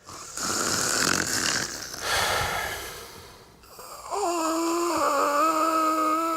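A person snoring: two rasping snores in the first three seconds, then a long, steady, pitched drone lasting about three seconds.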